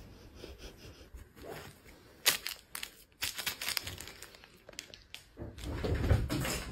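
Irregular rustling and crinkling handling noise as a cat is played with on a bed, with one sharp tap a little over two seconds in and a louder low rumble near the end as the phone is moved.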